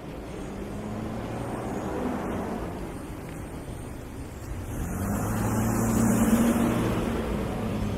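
Motor vehicles passing on a street with a low engine hum: a smaller swell about two seconds in, then a louder pass that peaks around six seconds in and fades.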